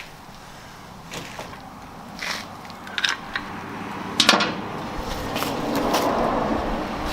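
A series of sharp clicks and knocks, the loudest about four seconds in, with a steady rustling noise building over the last couple of seconds.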